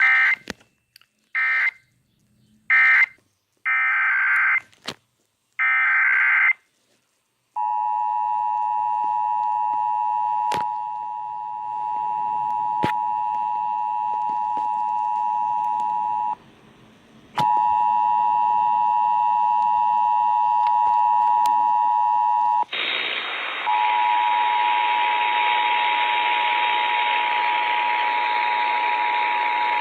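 Emergency Alert System signalling: five short screeching bursts of SAME digital data, then the EAS two-tone attention signal, two steady tones sounding together. The tones stop for about a second midway and resume, and for the last quarter a loud radio hiss runs under them.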